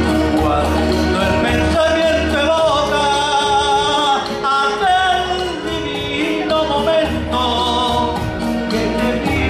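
A man singing into a microphone over instrumental accompaniment, with long, wavering held notes that bend up and down.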